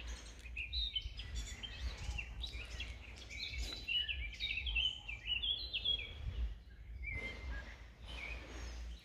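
Several songbirds singing in woodland: many quick, overlapping chirps and warbling phrases, thick for the first six seconds or so, then thinning to a few calls. A steady low rumble lies underneath.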